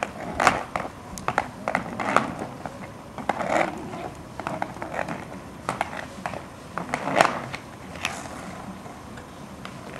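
Inline skate wheels rolling on asphalt, with irregular clacks and scrapes as the skates take short, unsteady strides; the loudest knock comes about seven seconds in.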